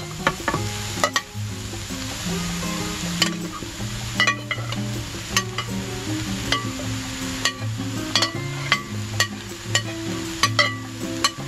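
Chopped onions sizzling without oil in a stainless-steel Saladmaster electric skillet as chopped cooked chicken and liver are tipped in from a glass bowl, with frequent sharp clicks and taps of a spoon scraping the bowl. Background music plays underneath.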